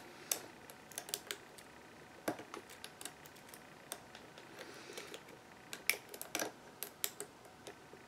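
Lock pick and tension wrench clicking irregularly against the pins inside the brass pin-tumbler cylinder of an American Lock 5530 padlock as it is being picked.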